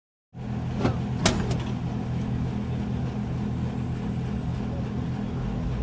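A steady low mechanical hum, like a motor running, with a few sharp clicks about a second in.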